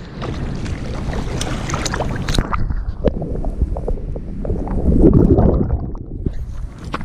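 Water splashing and sloshing close to the microphone, with many small splashes and a louder low swell about five seconds in, over wind buffeting the microphone.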